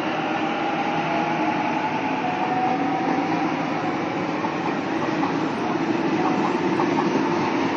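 Sydney Trains A-set (Waratah) electric train pulling out of the platform: steady running and rolling noise with a faint whine.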